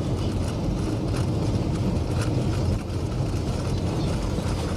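Steady low road and engine rumble of a moving vehicle, heard from inside the cabin, with a few faint clicks.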